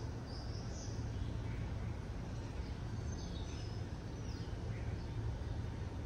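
Bard wall-mount heat pump running in heat mode with a steady low hum. A few faint bird chirps sound over it, about a second in and again around three to four seconds in.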